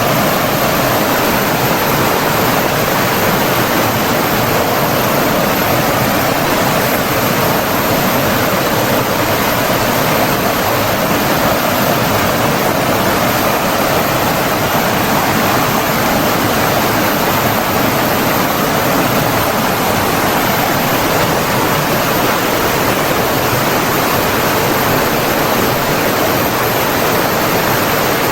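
Steady, unbroken rushing of flowing water, an even churning noise with no pauses or changes.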